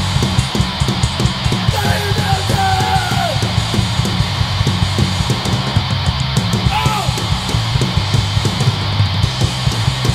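Hardcore punk band playing live with no vocals: distorted electric guitar, bass guitar and a drum kit pounding out a fast, steady beat. A couple of short gliding notes sound over the top.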